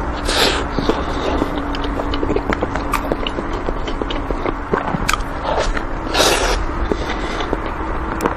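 Close-up biting and chewing of a chocolate-coated mousse cake: wet mouth clicks and smacks. Two louder bites come, one about half a second in and one about six seconds in.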